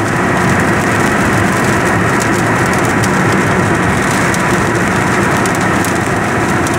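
Loud, steady vehicle noise with a low engine hum underneath.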